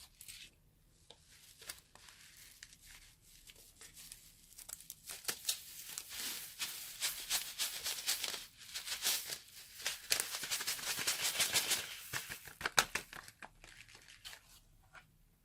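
Slime squeezed out of a piping bag, with rapid, dense crackling and popping that builds from quiet to loud midway and fades out near the end.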